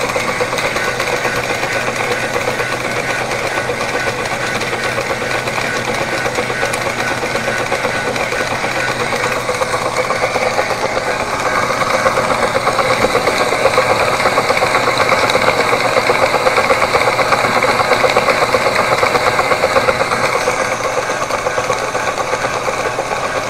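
Working live-steam model marine engine plant running under steam: the small model steam engine turning over at a steady pace, a fast, even clatter with hiss. It grows a little louder for about ten seconds in the middle.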